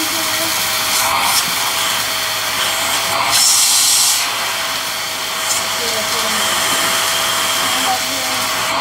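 Handheld cyclonic vacuum running steadily, its motor giving a constant whine under the rush of air. The airflow briefly hisses louder a few times, most strongly for about a second around three seconds in.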